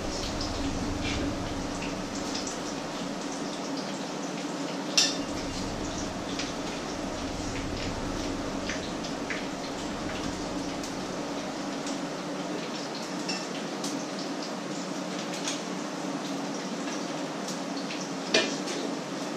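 Clinks of a metal utensil against frying pans and a ceramic plate while patties sizzle in the pans, over a steady low hum. Two sharper clatters stand out, about five seconds in and near the end.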